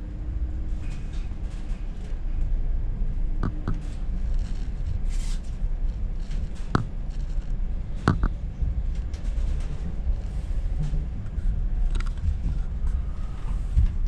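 Running noise of a passenger train heard from inside the carriage: a steady low rumble of wheels on rail, with a few sharp clicks now and then.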